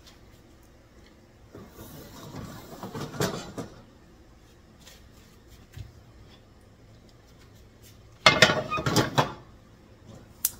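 Metal cookware moved about on a gas stove's grates. A rattling scrape builds about two seconds in as a pot is lifted off. Near the end a loud clatter comes as a frying pan is set down, then a single sharp click.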